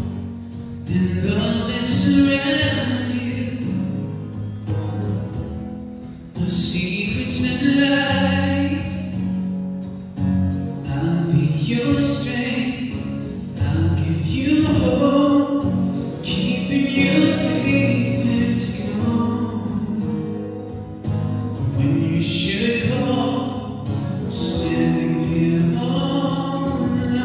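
Live male singing of a slow ballad accompanied by an acoustic guitar, in sung phrases of a few seconds each.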